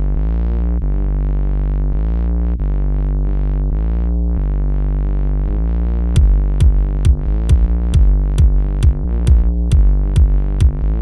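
Electronic background music: sustained synthesizer chords over a deep bass, with a drum-machine beat coming in about six seconds in at roughly two beats a second.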